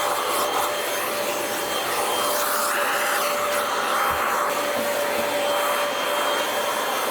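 A small electric motor blowing air, running steadily with a faint steady whine.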